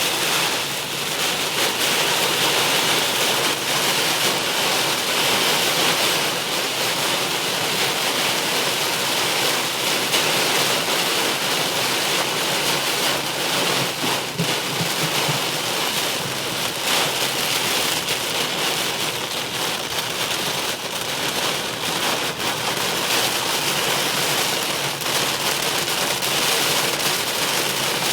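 Rain falling steadily on a car being driven, a dense, even hiss with no letup.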